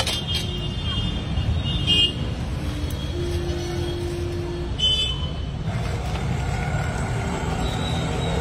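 Steady road-traffic rumble with brief vehicle horn toots, and music coming in near the end.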